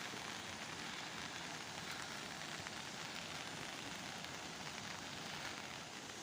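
Steady, even hiss of water outdoors after heavy rain, with no breaks or distinct drops standing out.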